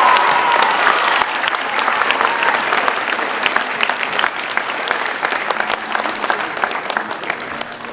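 Audience applause, many hands clapping, loudest at first and slowly tapering off.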